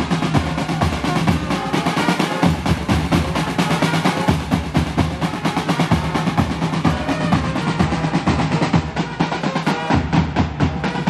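Marching band playing, its snare and bass drums beating a fast, driving rhythm with rolls.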